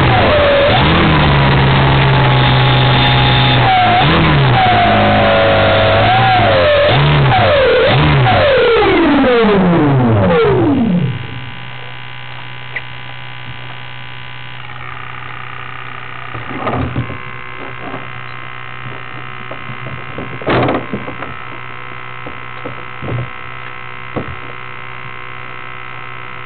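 Electric motor and propeller of a radio-controlled Edge 540 heard from on board, its pitch rising and falling with the throttle, then winding down to a stop about ten seconds in. After that, a low steady hum with a few knocks as the plane is handled.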